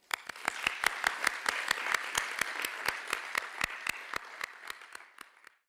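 Audience applauding, with one person's claps close to the microphone standing out, about four a second. The applause fades out near the end.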